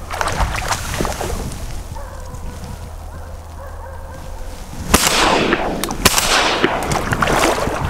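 Two shotgun shots about a second apart, each sharp crack followed by a long fading echo.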